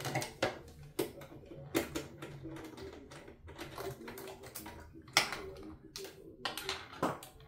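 Sewing machine fitted with a walking foot, stitching slowly. Irregular sharp clicks, about one or two a second, come over a steady low hum.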